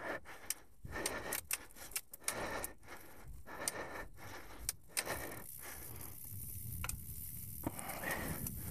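Mountain bike rattling and clicking as it rolls over a leaf-covered dirt trail. Sharp irregular clicks for the first few seconds, then a steadier rolling rumble with fewer clicks.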